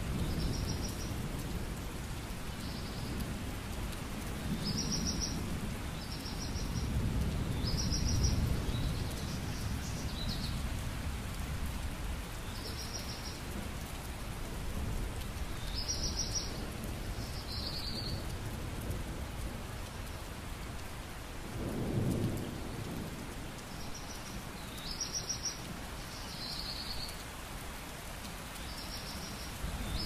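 Steady rain with low rumbling thunder, a louder rumble swelling about two-thirds of the way through. Over it a bird calls again and again, short high chirps every second or two.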